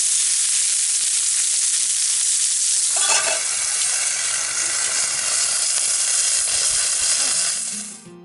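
Pork steak (tonteki) sizzling loudly as it fries over a campfire, getting busier about three seconds in and cutting off just before the end.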